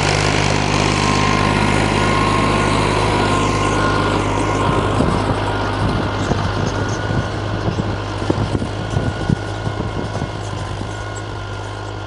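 Fiat 480S tractor's three-cylinder diesel engine running steadily under load as it pulls a 13-tine cultivator through the soil. The engine note fades gradually through the second half as the tractor moves away.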